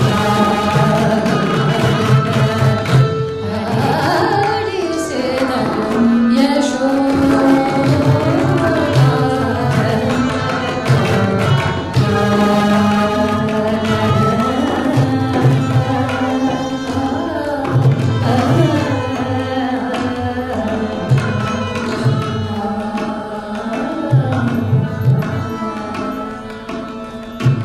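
Indian classical music in raga Kapi, adi tala, played live: a woman sings gliding melodic phrases with violin and harmonium accompaniment. Tabla and mridangam play clusters of drum strokes underneath.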